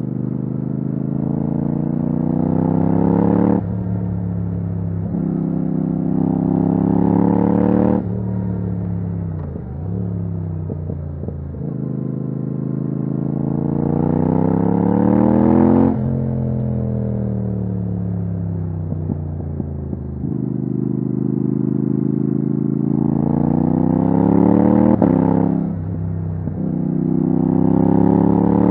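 Yamaha MT-07's 689 cc parallel-twin engine, breathing through a titanium Akrapovic exhaust with the dB killer removed, pulling hard through the gears. The pitch climbs several times under acceleration, each climb ending in a sudden drop, and there is one stretch where the revs fall away as the bike slows.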